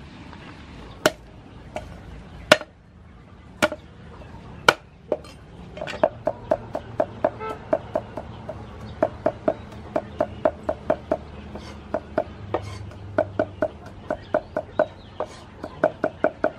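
Cleaver chopping on a thick round wooden chopping board: a few separate sharp knocks in the first five seconds, then steady rapid chopping at about three to four strokes a second.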